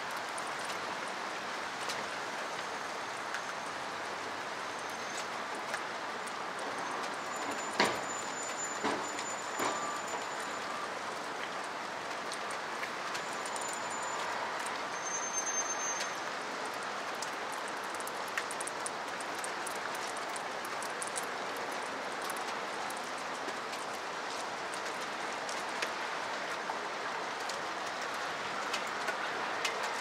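Steady rain falling, an even hiss with scattered sharp drip clicks, the loudest about 8 seconds in. A few short, thin, high bird calls come through the rain in the first half.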